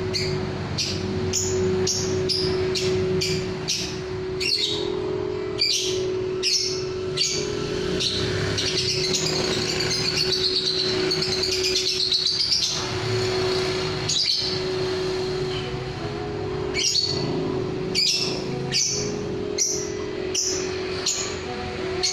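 Lovebird singing: repeated short, high chirps, with a long unbroken trilling warble of several seconds in the middle. A steady low hum runs underneath.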